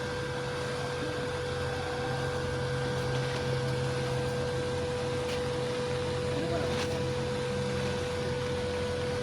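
TIG welding arc running on a root pass: a steady electrical hum over an even hiss, with the hum dropping away near the end.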